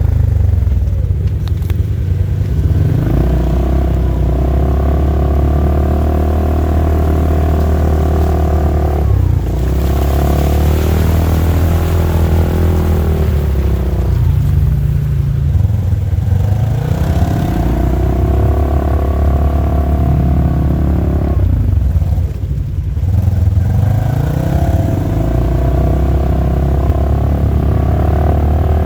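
Polaris RZR side-by-side engine running under way on a trail. Its pitch drops and climbs back about four times as the throttle is eased off and reapplied.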